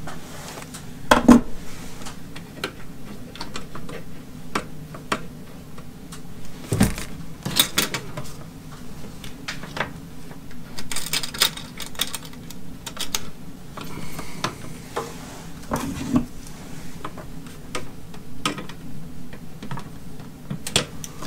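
Hands working a 10-gauge ground wire and the grounding post of an Ethernet surge protector: scattered small metallic clicks and clinks with a few sharper knocks, over a steady low hum.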